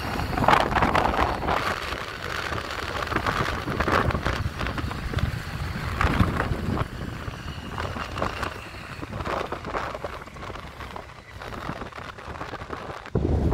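Wind buffeting the microphone in uneven gusts, over a steady low rumble.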